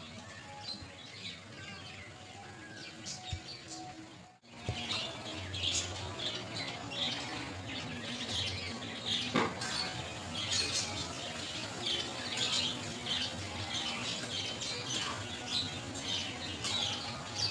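Many short bird chirps and squawks overlapping, with faint music underneath; the sound drops out briefly about four seconds in.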